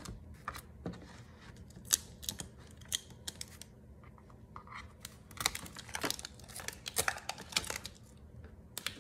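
Small scissors snipping through packing tape, with paper and cardboard backing rustling and tearing in short irregular bursts and scattered clicks. The busiest stretch comes a little past the middle.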